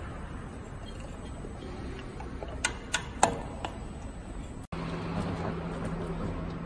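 A few sharp metallic clicks from a hand tool working a fastener in the wooden forming block of a paper box forming machine, over low background noise. After a short break, a steady low hum sets in.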